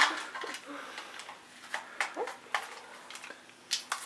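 Scattered plastic clicks and knocks of a smoke alarm being handled, twisted and pried at to get its stubborn cover off and reach the battery.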